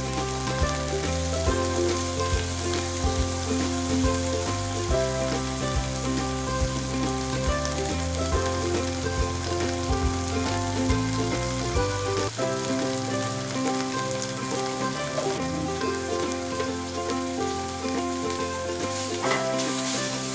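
Tomato pieces, garlic and whole spices sizzling in hot oil in a non-stick frying pan, stirred at times with a wooden spatula. Background music with held notes plays over it.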